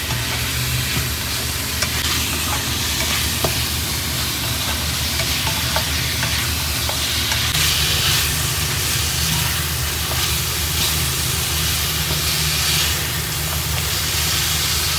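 Chicken and chili paste sizzling in a frying pan as a spatula stirs and scrapes through it, with a few light clicks of the spatula against the pan in the first half. A steady low hum runs underneath.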